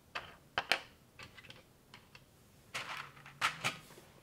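Plastic LEGO-compatible bricks and Technic parts being handled and pressed together: a run of sharp plastic clicks and taps, busiest in two quick clusters about three seconds in.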